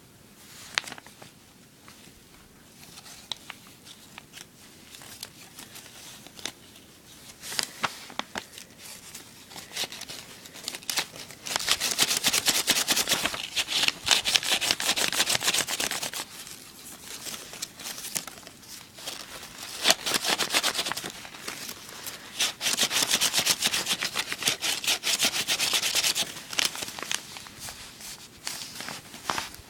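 Sheet of origami paper being handled and folded: scattered light rustles and taps, with two longer stretches of dense scratchy rubbing, each about four seconds, as the paper is pressed and rubbed along its folds.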